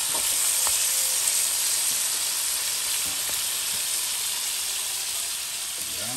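Seasoned beef short ribs sizzling steadily as they brown in oil over high heat, with a few light taps early on. The sizzle eases slightly near the end.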